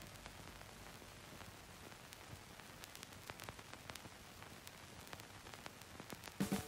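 Faint static hiss with scattered crackling clicks, like record surface noise; louder music starts right at the end.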